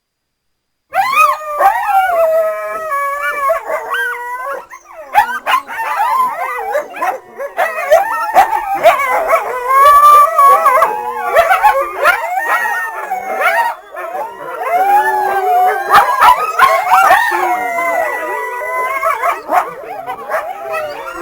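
Coyotes howling and yipping in a chorus: many wavering, rising and falling calls overlap. It starts suddenly about a second in.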